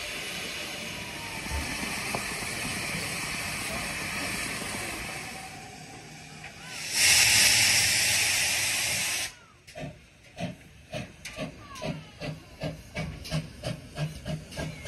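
Steam locomotive hissing steadily. Then a small steam tank engine lets out a loud blast of steam hiss for about two seconds, cut off sharply, and starts moving with even exhaust chuffs at about two and a half beats a second.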